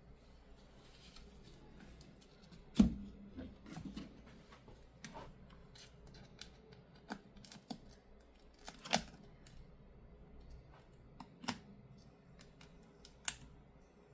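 Scattered light clicks and taps from hands handling the tablet and tools on the work surface, with one sharper knock about three seconds in and a few more spread through.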